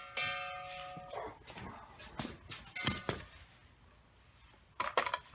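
Steel shielding gas cylinder clanking as it is handled, ringing like a bell when struck at the start and again near the end, with a few dull knocks in between.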